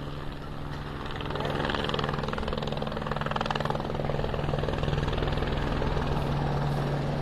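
Police helicopter flying low and approaching: fast rotor chop over a steady engine hum, growing louder about a second in.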